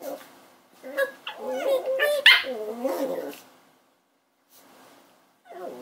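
Puppies play-fighting, giving wavering high-pitched growls and whines with one sharp yip a little past two seconds in, then going quiet for a couple of seconds before a short call at the end.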